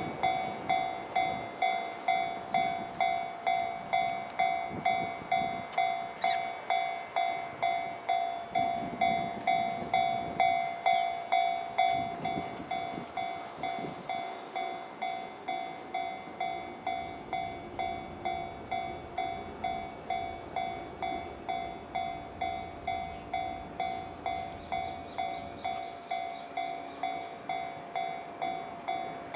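Japanese level-crossing warning alarm ringing its repeated electronic 'kan-kan' tone, about three rings every two seconds, which signals that a train is approaching. The alarm gets noticeably quieter about twelve seconds in.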